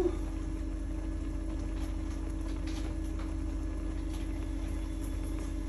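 Pot of noodles boiling on the hob: a steady hum under scattered faint ticks and clicks, with a small knock at the very start.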